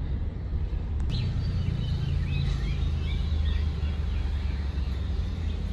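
A car engine idling, a steady low rumble heard from inside the cabin. Birds chirp in short twittering calls for a couple of seconds, starting about a second in.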